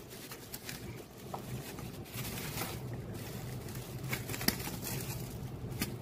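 Bubble-wrap plastic bag rustling and crinkling in irregular crackles as hands pull a packaged box out of it, with one sharper crackle about four and a half seconds in, over a steady low hum.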